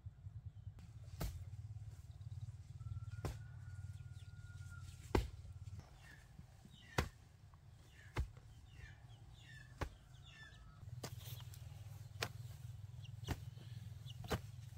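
Sharp knocks or chops at irregular intervals, about one every second or two, over a low rumble that drops out for a few seconds in the middle. A few short chirps are heard between the knocks.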